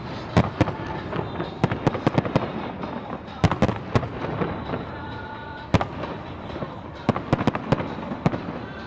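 New Year fireworks going off: many sharp, irregularly spaced bangs over a continuous rumble and crackle of bursts.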